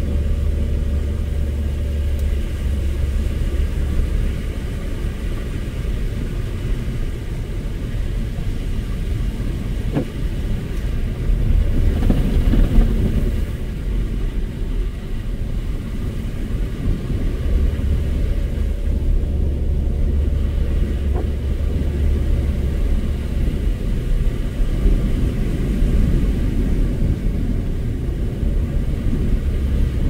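Car driving on a snowy road: a steady low rumble of engine and tyre noise, swelling briefly about twelve seconds in, with a faint click about ten seconds in.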